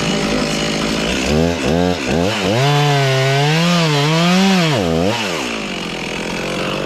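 Two-stroke chainsaw idling, then revved several times and held at high revs with the pitch dipping and recovering as it cuts under load, finishing the back cut in a tree held by wedges, before dropping back to idle about five seconds in.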